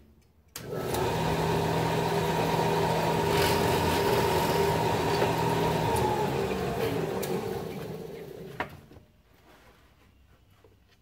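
A large old floor-standing drill press starts up about half a second in and runs with a steady motor hum while its bit bores through plywood. Near six seconds the motor is switched off and winds down, stopping around nine seconds with a single sharp click.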